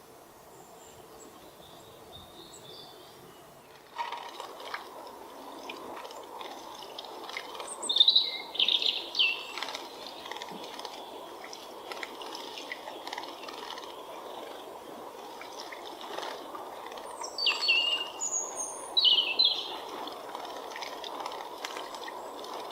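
Small songbirds calling in short, falling chirps, in two clusters about eight seconds in and again around seventeen to nineteen seconds, over a steady rush of water that starts suddenly about four seconds in.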